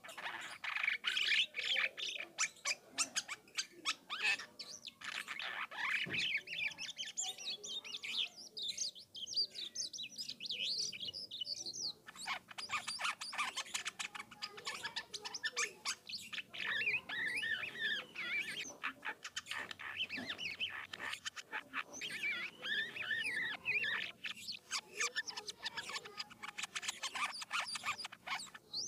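Jalak kapas starling singing a long, rolling song: rapid rattling chatter mixed with varied chirps and whistles, with barely a pause.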